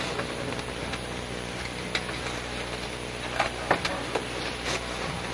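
Steady low hum and hiss of a room recording, with a few scattered short knocks and clicks.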